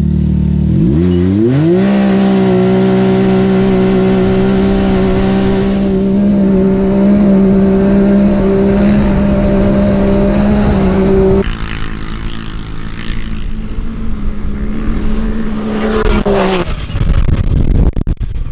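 Can-Am Maverick X3 Turbo's turbocharged three-cylinder engine revving up at full-throttle launch, then holding a steady high pitch as it pulls uphill through sand in four-wheel drive. Around eleven seconds in it drops quieter, and near the end the revs fall away.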